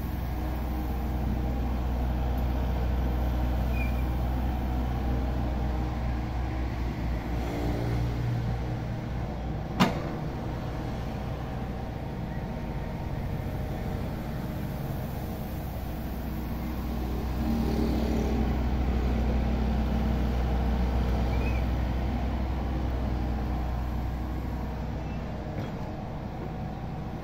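Steady low hum of a running vehicle engine, swelling slightly for a few seconds past the middle, with one sharp click about ten seconds in.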